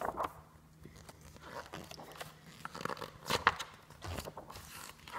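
Pages of a large hardcover book being leafed through: irregular paper rustles and soft handling knocks.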